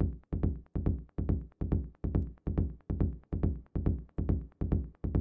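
Electronic drum loop playing back at a steady four-to-the-floor pulse, about two and a third hits a second: each hit is a low, booming drum with a quick decay, a low-passed tribal percussion sample layered with the kick, with a little of it being sent to a short reverb.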